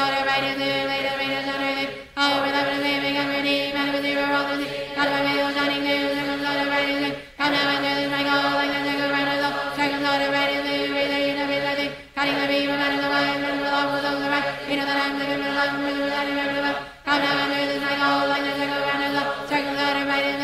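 Rapid, monotone chanting of a spoken decree, held on one steady pitch, with a short break for breath about every five seconds as each repetition begins again.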